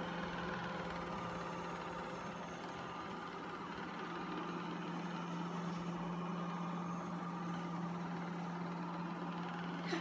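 LG Roboking robot vacuum cleaner running on carpet: a steady low motor hum over the even whirring hiss of its suction fan and brushes.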